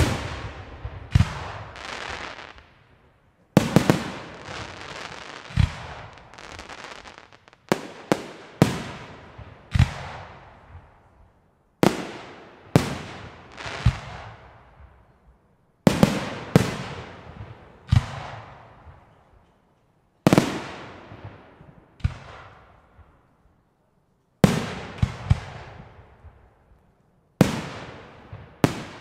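Aerial firework shells bursting, a sharp bang every second or two, often two or three in quick succession, each followed by a long rolling echo.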